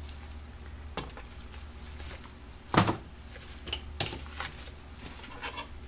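Plastic side-dish containers and metal tongs knocking and clinking in a stainless-steel banchan station, a handful of separate knocks with the loudest almost three seconds in, over a steady low hum.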